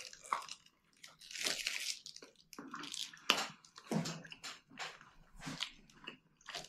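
A person chewing a mouthful of chicken shawarma with his mouth closed: an irregular run of short chewing sounds.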